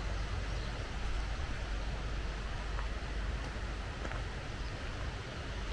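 Steady outdoor rushing noise with a low rumble, with a few faint clicks.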